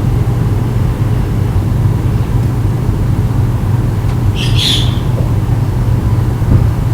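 A steady low hum, with one short high-pitched sound about two-thirds of the way through.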